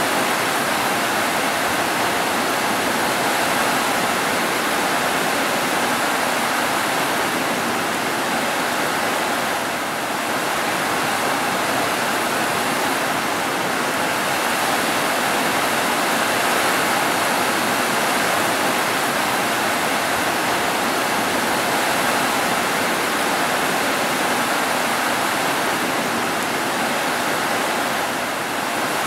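Steady rainfall: an even, dense hiss of rain with no thunder.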